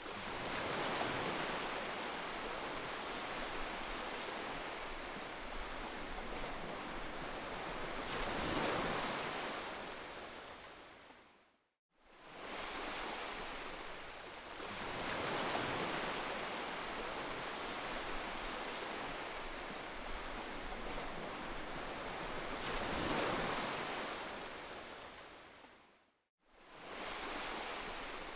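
Heavy rain falling as a steady hiss that swells now and then, and twice fades briefly into silence, about fourteen seconds apart.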